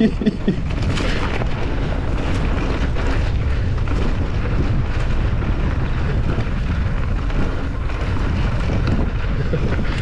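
Wind buffeting a GoPro HERO10 Black's microphone at riding speed: a steady, heavy low rushing noise.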